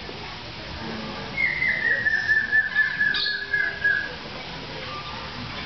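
A long whistled note lasting nearly three seconds, sliding slowly down in pitch, with a short click partway through.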